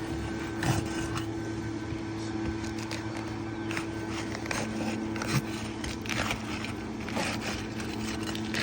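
Flat pry bar working under three-tab asphalt shingles to break their adhesive seal strips: scattered scrapes, crackles and short clicks, with a sharp knock about five seconds in.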